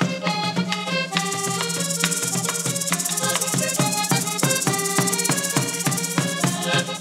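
Live cumbia played on accordion over a drum beat. From about a second in, a dense, fast, high rattle of hand percussion joins and keeps going.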